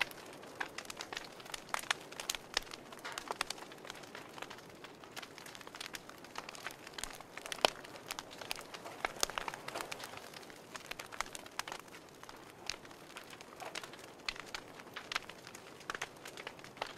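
Wood fire crackling in a wood stove: irregular sharp pops and snaps over a faint hiss, with one louder pop about halfway through.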